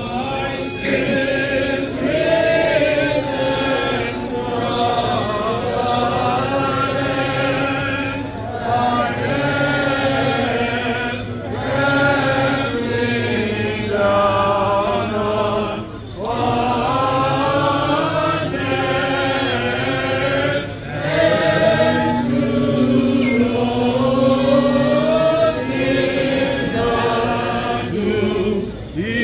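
Greek Orthodox liturgical chanting: voices sing long melismatic phrases in Greek, separated by short breaks.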